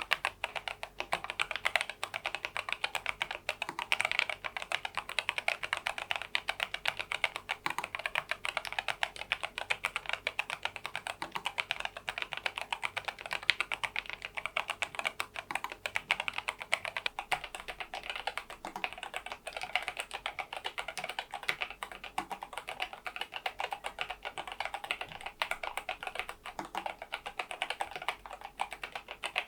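Fast, continuous typing on a NuPhy Air96 low-profile keyboard with its stock low-profile keycaps and Gateron LP 2.0 red linear switches: a dense, even stream of light, crisp key clacks.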